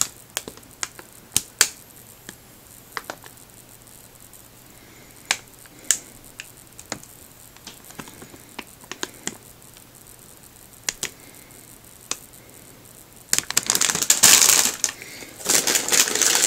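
Plastic bags of model-kit runners being handled: scattered sharp clicks and crackles, then, near the end, a burst of loud, dense crinkling as a bag is rummaged in the kit box.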